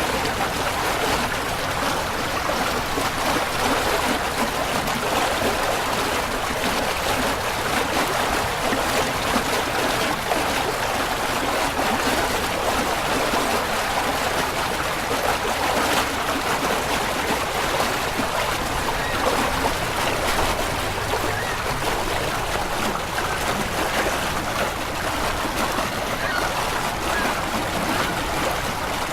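Sci-fi spaceship engine room sound effect: a steady, dense mid-pitched wash that swells and shifts slowly, more like rushing noise than clear notes.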